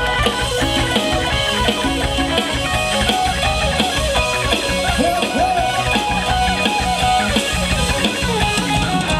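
Live band music over loudspeakers, with electric guitar and drum kit, playing a basalop dance tune.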